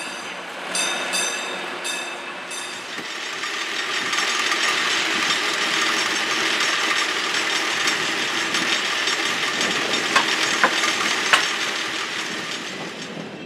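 San Francisco cable car running along its rails: a steady rattling rumble from the car and its track, with a few short metallic rings in the first couple of seconds and three sharp clicks near the end.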